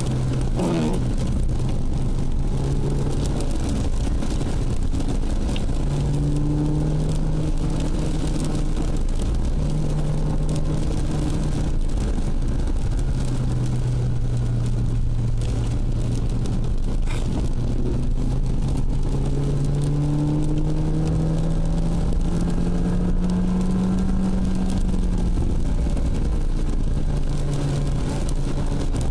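Ford Puma heard from inside the cabin while driving on a wet road: the engine's steady drone rises and falls in pitch with speed and gear changes, over a constant hiss of tyres and rain.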